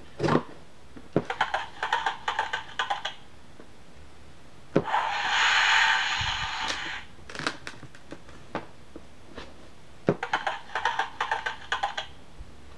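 Handling of a cardboard board book as a page is turned: two runs of light clicks and taps, with a louder rustling swish of paper and hand in between.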